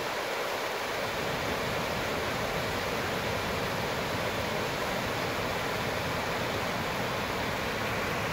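Small creek waterfall, water cascading over a rock ledge into a shallow pool with a steady rushing sound.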